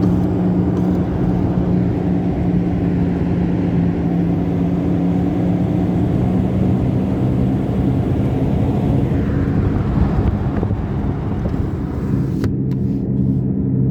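Damaged rear left wheel bearing of a Toyota RAV4 humming steadily while driving, heard inside the cabin over tyre and road noise. The hum drops lower in pitch near the end.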